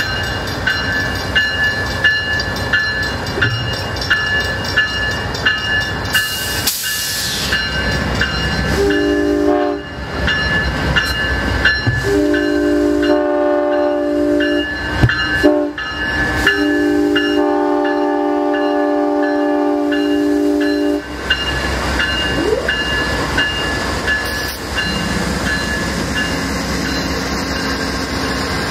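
A diesel locomotive's multi-note air horn sounds four blasts in the grade-crossing pattern, long, long, short, long, the last one the longest, as a train approaches and passes. A steady rumble of engine and wheels on rail runs underneath, and a bell dings regularly throughout.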